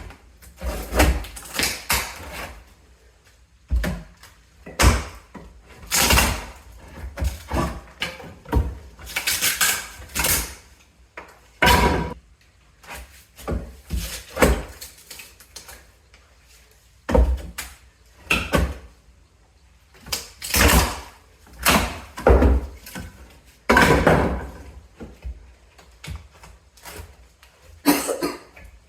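Termite-damaged wooden floorboards being torn up: irregular knocks, cracks and clattering of wood in many short bursts, with brief pauses between them.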